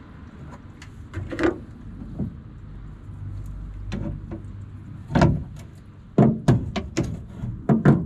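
Irregular metallic clicks and knocks from the tailgate latch mechanism of a 2006 Ford F-250 being worked while it is stuck locked. The knocks are sparse at first and come faster and louder over the last three seconds.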